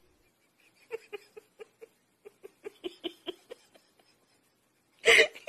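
Soft giggling laughter in short, rhythmic pulses, about five a second, for around three seconds. A brief loud sound cuts in near the end.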